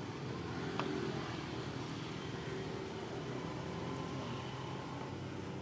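A steady low mechanical drone, as from a running motor or engine, with one short click about a second in.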